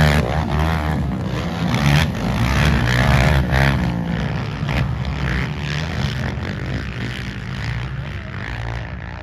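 Race quads' engines revving hard as they go by, pitch rising and falling with the throttle; loudest near the start and again about three seconds in, then fading toward the end.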